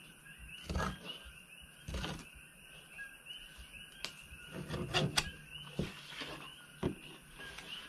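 Fillet knife cutting a barracuda fillet away from its rib cage, with several short knocks and scrapes of the blade on bone and the plastic table. Faint steady chirping goes on in the background.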